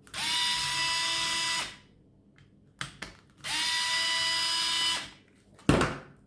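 Small cordless electric screwdriver run twice, about a second and a half each time, spinning up quickly to a steady whine as it undoes screws. A short sharp knock comes near the end.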